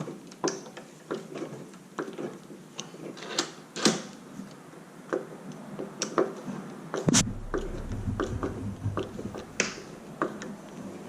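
Irregular sharp clicks and small knocks of door-lock hardware being handled and fitted on a door, with a louder knock about seven seconds in followed by a brief low rumble.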